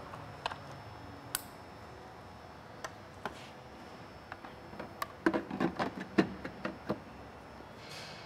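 Scattered clicks and knocks of a Jeep Wrangler JK taillight and its fasteners being handled and fitted back on, with a quick run of knocks about five to seven seconds in.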